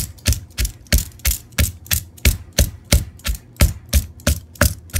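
Wooden pestle pounding fresh herbs and chili in a clay mortar: a steady run of dull thuds, about three strikes a second.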